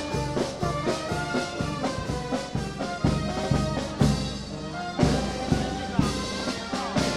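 Brass marching band playing a march: trumpets and trombones carry the tune over a steady drum beat.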